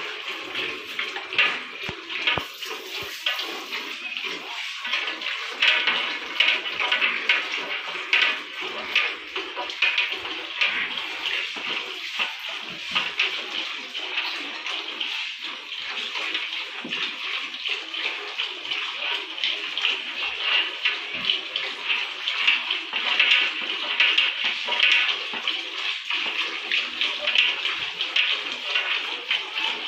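Buffalo milk squirting in rapid hand-milked streams into a steel pot, a continuous hissing spatter.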